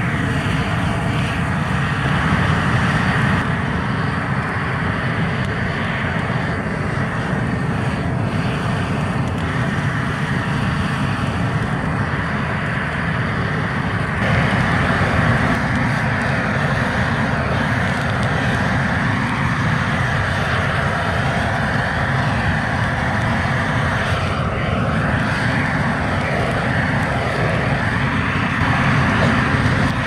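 Propane weed-burner torch burning steadily, a continuous loud rushing hiss of the gas flame as it scorches grass.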